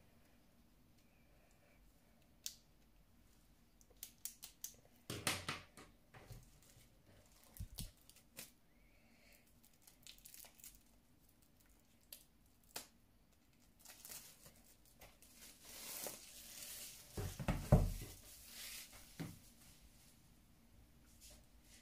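Clear plastic packaging on an album being handled, making scattered crinkles and rustles, with a couple of dull knocks. The crinkling is busiest about two thirds of the way through.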